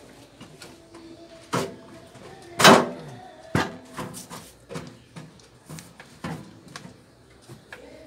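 Sheet-metal outer cover of a microwave oven being worked loose by hand: a string of sharp metallic knocks and clanks, the loudest about two and a half seconds in, ringing briefly.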